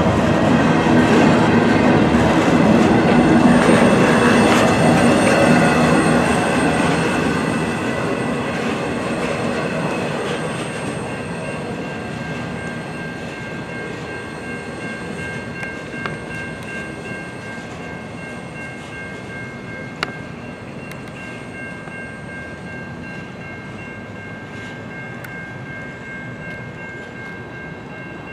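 Train cars rolling past on the rails, a loud rumble that fades steadily as the train moves away. A steady high-pitched squeal comes in about a third of the way through, and there are two sharp clicks in the second half.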